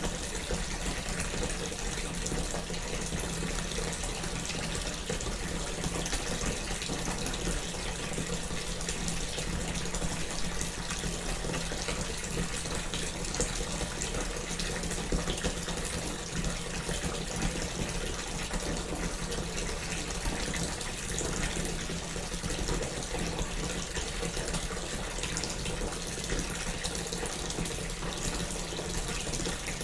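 Bath tap running, water pouring steadily into a bathtub as it fills.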